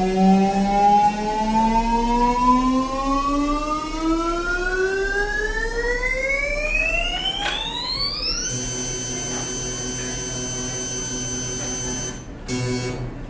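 Electronic noise soundtrack: a synthesized tone with overtones glides steadily upward in pitch for about eight seconds. It then snaps to a steady drone of fixed tones, which stutters and cuts out several times near the end.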